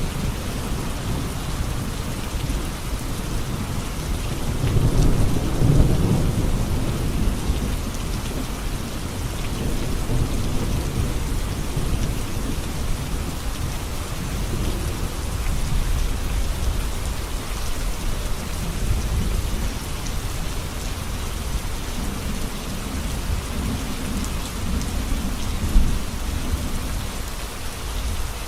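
Heavy rain pouring steadily onto a road, a dense hiss of drops on the hard surface. Low rumbles of thunder swell under it about five seconds in and again near the end, with a single sharp knock shortly before the end.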